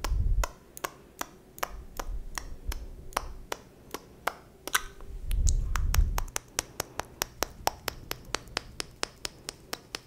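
A fast run of sharp clicks made right at the microphone, about four a second, for an eyebrow-plucking ASMR role-play. Low muffled thumps come right at the start and again about five to six seconds in.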